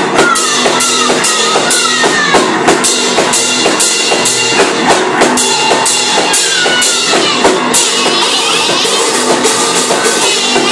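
Live two-piece rock band: electric bass and drum kit played hard on a steady beat, with both players shouting vocals into their microphones.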